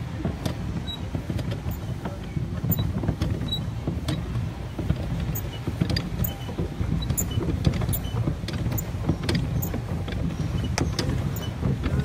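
Low, unsteady rumble of a boat moving across a lake, with scattered faint high chirps.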